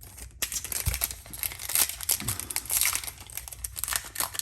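Crinkling and tearing of a foil Yu-Gi-Oh! booster pack wrapper being handled and ripped open: a dense run of crackles that starts about half a second in.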